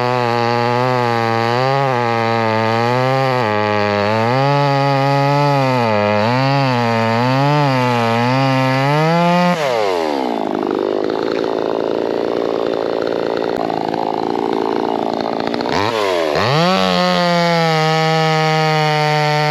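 VEVOR 58cc two-stroke gas chainsaw running at high revs, its pitch wavering up and down as the throttle is worked. About halfway through, the note drops and turns rough and noisy for about six seconds as the chain bites into wood, then it climbs back to a steady high speed.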